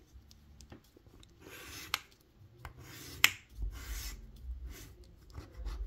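Coin scraping the latex coating off a scratch-off lottery ticket in short strokes, with a couple of sharp clicks about two and three seconds in.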